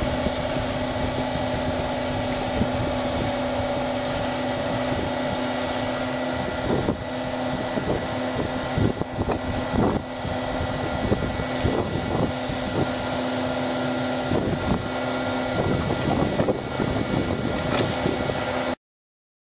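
Hydraulic excavator running steadily, a constant machine hum with a few scattered knocks and clanks partway through; the sound cuts off suddenly near the end.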